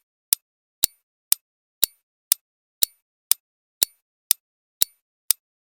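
Countdown timer sound effect ticking steadily, about two sharp ticks a second, while the clock for a quiz answer runs down.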